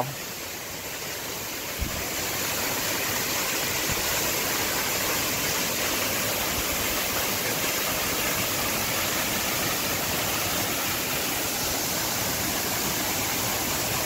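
Steady rushing of a 45-foot waterfall plunging into the pool at its base, a little louder from about two seconds in.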